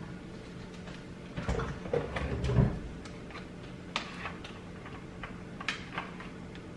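Scattered clicks and light knocks of a plastic cooking-oil bottle being picked up and its cap worked open, with a duller thump about two and a half seconds in and single sharp clicks later on. A steady low hum runs underneath.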